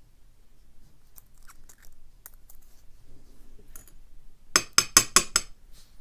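A small pick scraping and ticking faintly in the plug of a euro profile cylinder, then near the end a quick run of about six bright metallic clinks as the small passive pins fall out and bounce on an aluminium pin tray.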